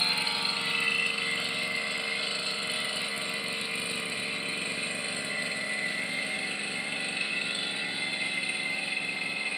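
Brush cutter's small engine running steadily at moderate revs, easing down from higher revs right at the start.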